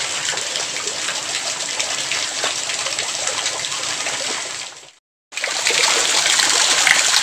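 Shallow water running and trickling steadily, with many small splashes and drips. The sound fades out briefly about five seconds in and comes back a little louder.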